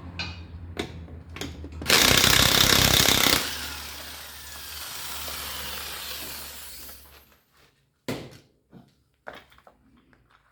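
Electric impact wrench hammering hard for about a second and a half, loosening a fastener on a car's wheel, then its motor running on and winding down. A few short metallic clicks follow near the end as parts are handled.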